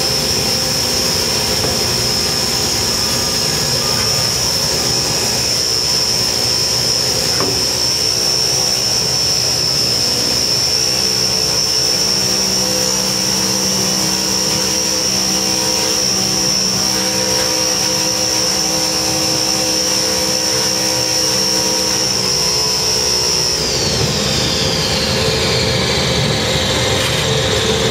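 Heavy machinery running steadily with a high whine, which falls in pitch near the end as the machine winds down.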